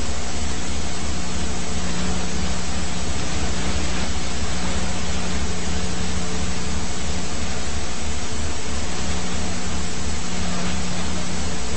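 Police helicopter cabin noise: a steady loud hiss with a fast low rotor beat and a steady hum under it.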